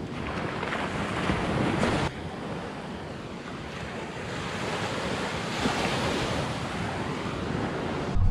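Small waves breaking and washing up on a sandy beach, with wind buffeting the microphone. The level drops suddenly about two seconds in, then the wash swells again.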